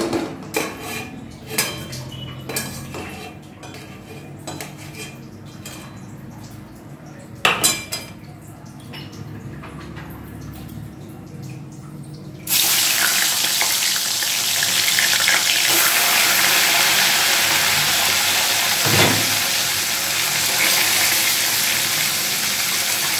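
A few clinks and knocks of a metal spatula against an aluminium kadai, then about halfway through a sudden loud sizzle as rohu fish heads go into hot oil and keep frying steadily, with one brief thump a little later.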